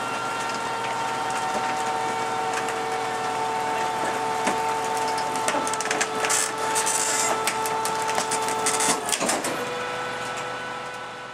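Rear-loader garbage truck's hydraulic compactor running with a steady whine, while bulky rubbish clatters and cracks as it is packed. About nine seconds in the whine changes pitch.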